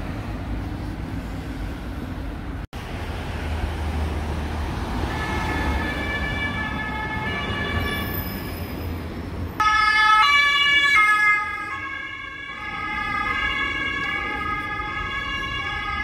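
City street traffic noise, joined about five seconds in by steady held tones that grow louder and shift to new pitches in steps near the middle before holding.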